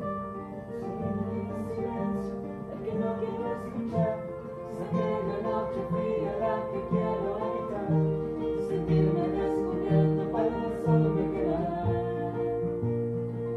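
Music: guitar with plucked notes over held, sustained tones.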